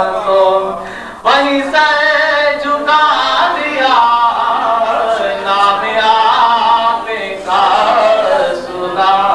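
A qari's unaccompanied-sounding solo chant: a man's voice in long, ornamented held notes that bend in pitch, in a devotional naat-style recitation. The voice breaks off briefly for breath about a second in and again near the end.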